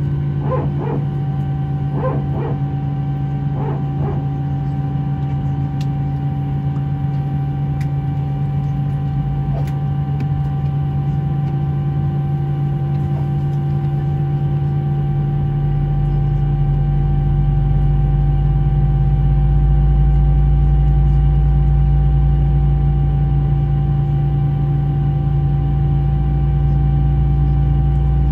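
Steady cabin hum of an Airbus A319-132 airliner on the ground, several fixed tones over a low drone. About halfway through, a deep rumble builds up and stays.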